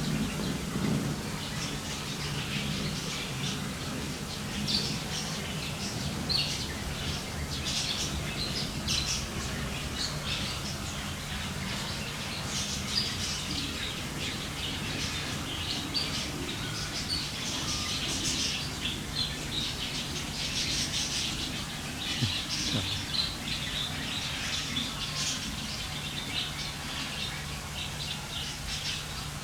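Many small birds chirping in quick, overlapping calls throughout, over a steady low hum.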